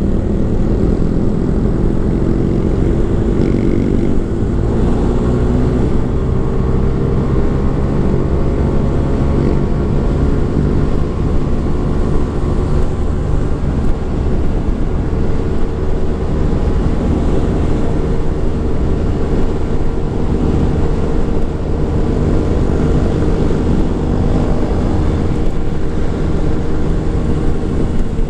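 Motorcycle engine running under way, its pitch slowly rising and falling with engine speed, over heavy low rumble.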